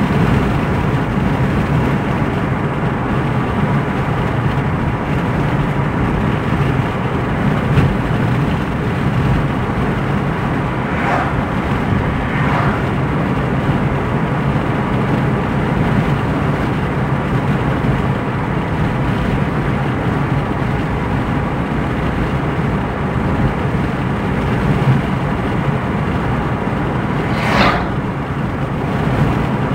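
Steady road and engine noise inside a car cabin cruising on a highway. A few brief whooshes of passing traffic come through, two close together about a third of the way in and a stronger one near the end.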